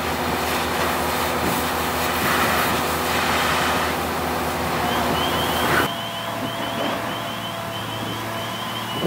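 Steady hiss of a fire hose's water spray and steam off hot, smouldering debris, over a running engine's drone. About six seconds in it cuts to a quieter steady engine hum, with a faint run of short, high, rising chirps.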